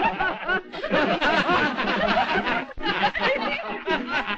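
A crowd of people laughing and snickering together, many laughs overlapping without a break.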